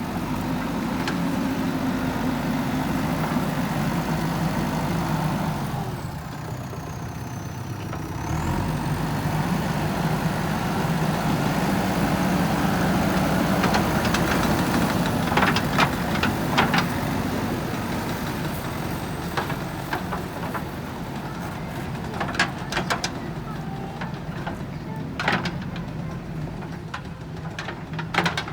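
JCB backhoe loader's diesel engine running under working load, easing off briefly a few seconds in and then pulling hard again. In the second half, sharp knocks come singly and in quick clusters as stones strike the steel bucket.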